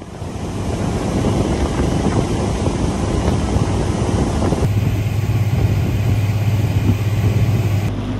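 Boat outboard motor running under way, with heavy wind noise on the microphone. About halfway through it changes to a steadier low engine hum.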